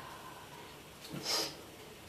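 A small kitchen knife cutting through a peeled piece of root: one short slicing sound a little over a second in.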